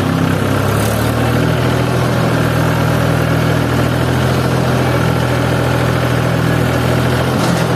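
Diesel tractor engine running at a steady pace as the tractor drives along a dirt track, heard from the driver's seat close to its upright exhaust stack.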